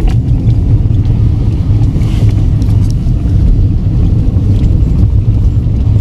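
Car driving over a rutted snowy road, heard from inside the cabin: a loud, steady low rumble of engine and tyres, with a few short knocks from bumps near the start and about two seconds in.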